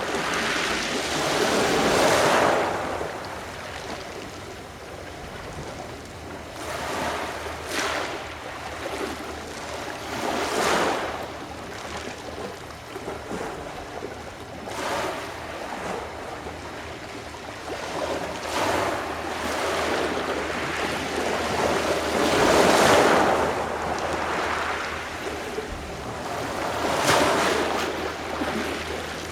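Adriatic Sea waves washing onto the shore, the surf swelling and falling away every three to four seconds.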